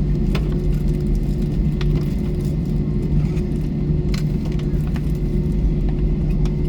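Steady low hum and drone inside an Airbus A321 airliner cabin, parked with the seatbelt sign switched off, with a few faint brief clicks.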